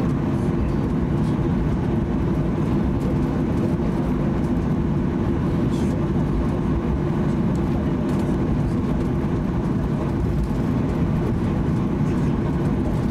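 Steady cabin noise inside a Boeing 737-800 taxiing, its CFM56 engines running at taxi power. The result is an even, low rumble with a steady hum.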